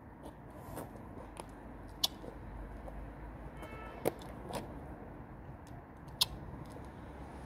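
Three sharp clicks about two seconds apart, with fainter ticks between them, over a low steady hum; a brief high tone sounds near the middle.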